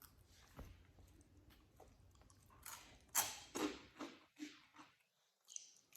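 Quiet crunching of crunchy veggie-stick snacks being chewed, with a handful of sharper crunches between about three and four and a half seconds in.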